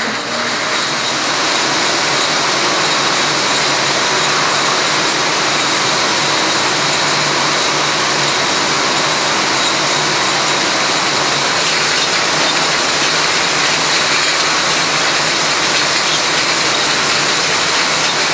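Steady, loud mechanical din of a factory conveyor line carrying empty glass jars, running on without a break.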